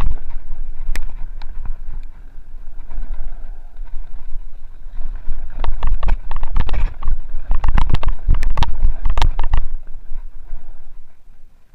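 Mountain bike descending a rough dirt trail at speed, with wind buffeting the microphone in a constant low rumble. The bike rattles and knocks over the rough ground, with a dense run of clatters from about five to ten seconds in, easing off near the end.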